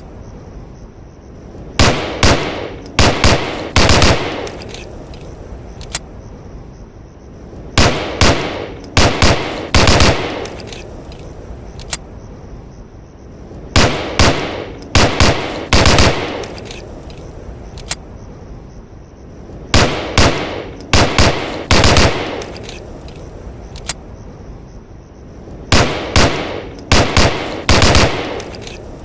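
M1911A1 .45 ACP pistol firing in quick strings of four or five shots, each with a short ringing tail. A string repeats about every six seconds, with a faint single click between strings.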